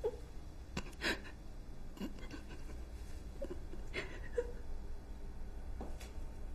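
Soft, brief breaths and gasps, one every second or two, over a faint steady low hum.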